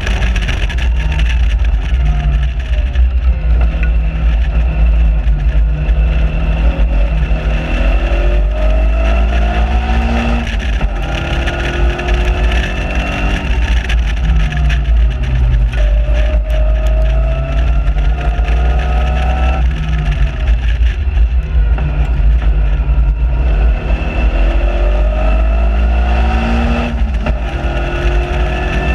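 Caterham Seven 1.6 Supersport's engine heard onboard at full track speed. It revs up through the gears, the pitch climbing for several seconds and dropping back at each upshift, and falls away on the brakes between straights. Heavy wind rumble on the open cockpit lies under it.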